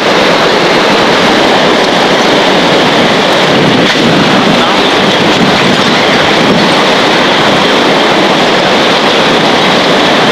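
Hurricane-force wind and driving rain, a loud steady rush of noise that does not let up.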